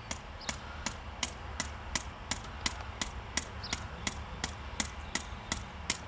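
Hammer striking metal in a steady run of sharp blows, about three a second, each with a short ring.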